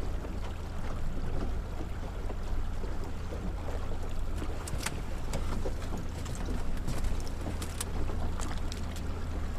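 Boat motor running steadily while trolling, a low even hum under the noise of water and air, with a few light sharp clicks.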